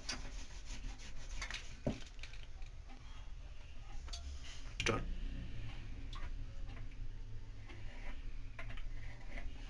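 Light taps and scraping of kitchen tools working rolled-out dough on a board, with a sharper tap about two seconds in and another about five seconds in, over a low steady hum.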